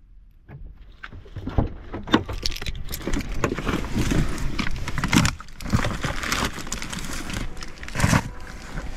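Keys jangling and plastic water bottles and a bag rustling and knocking as they are loaded into the rear footwell of a Skoda Kodiaq, along with the clicks of its rear door being opened: a busy run of separate knocks and rustles.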